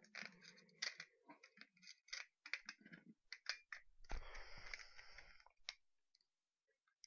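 Small parts of a PC356 airsoft pistol clicking and rattling as they are handled and fitted together by hand. Partway through comes a longer rubbing, scraping noise lasting about two seconds.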